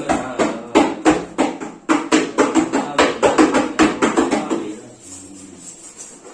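Music with a steady beat of about three hits a second; the beat drops away about five seconds in, leaving quieter sustained notes.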